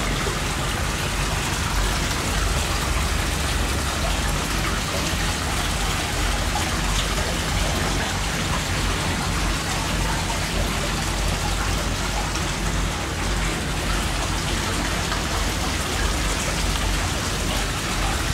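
Hot-spring water pouring and splashing steadily into an open-air rock bath, a continuous even rush of water.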